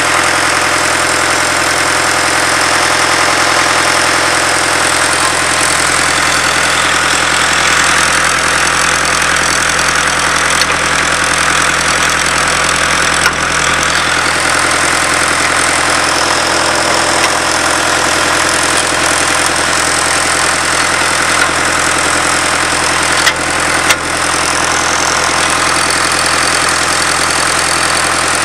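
Engine of a Bucyrus-Erie 22-W cable-tool drill rig running steadily, with a few sharp metallic knocks, the loudest near the end.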